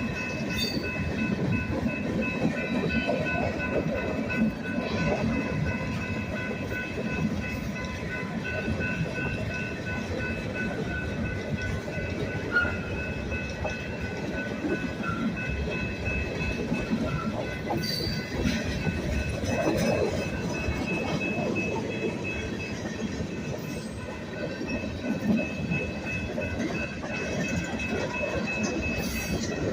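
Train rolling past, its wheels clattering steadily over the rails, with a railroad crossing bell ringing on and on above the rumble.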